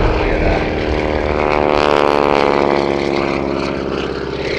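Grumman Ag Cat biplane's radial engine and propeller running at display power as it flies past, loudest about two seconds in, then easing off as it flies away.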